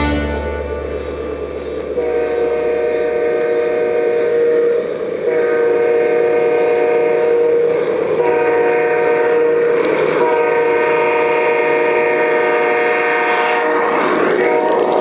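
Electronic sound-unit horn of a garden-scale model diesel locomotive, blowing the grade-crossing signal: two long blasts, a short one, then a long one, each a steady chord of several notes.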